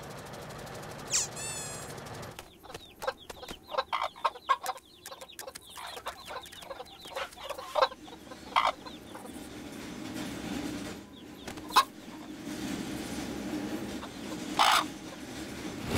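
Chickens clucking: a quick run of short clucks, then a few scattered single calls.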